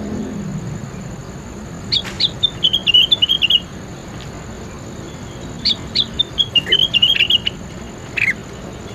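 A songbird singing two quick phrases of high, chattering chirps a few seconds apart, then a single falling note near the end.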